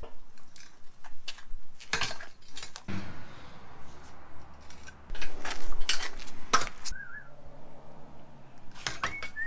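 Steel parts being handled: an irregular run of metallic clinks and knocks as a swivel caster wheel is set against a drilled steel frame, with a cluster of louder knocks about halfway through.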